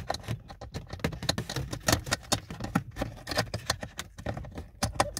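Irregular small plastic clicks, taps and rustles of hands working a wiring plug back into the body module under a Ford Transit's dashboard.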